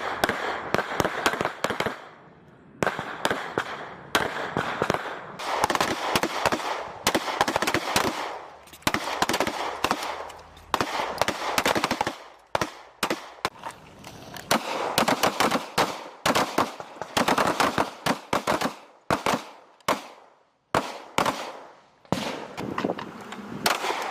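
Pistols firing rapid strings of shots on an outdoor range, two shooters' shots overlapping in a dense, irregular volley with a few short pauses.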